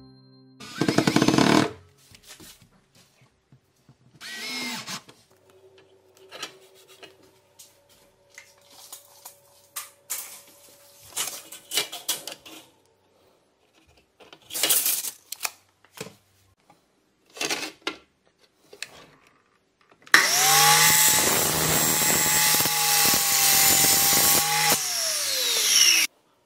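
Festool KS 60 mitre saw running and cutting through an aluminium Gola rail profile for about six seconds, its motor tone falling as it spins down near the end. Before that, after a short loud burst about a second in, come scattered clicks and handling noises as the rail is measured and marked.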